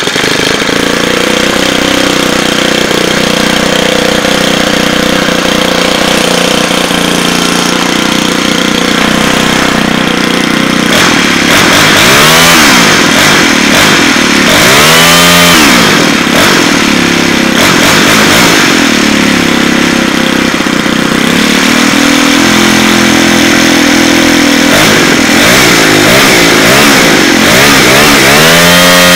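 Ryobi 30cc OHC four-stroke string trimmer engine, just started, idling steadily for about ten seconds. It is then revved up and back down, twice in quick succession, held at a higher speed for a few seconds, and revved once more near the end.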